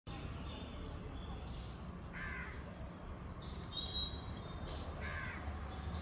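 Several wild birds calling: high whistled notes and gliding calls, with two short, harsh calls, about two seconds and five seconds in, over a steady low rumble.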